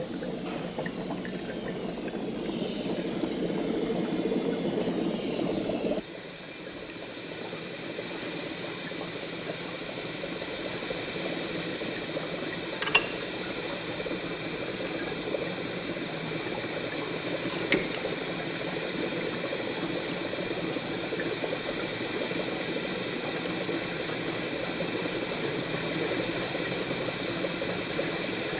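Hospital ambience: a steady hiss and hum of room noise with faint high steady tones, changing to a quieter, thinner bed about six seconds in, with two short clicks later on.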